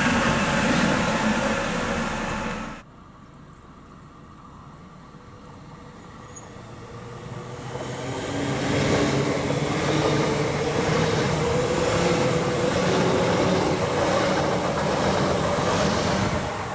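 Electric locomotives running coupled, passing close, cut off abruptly about three seconds in. Then an Alstom Coradia Continental electric multiple unit approaches, growing steadily louder, and passes close with a steady hum and rail noise.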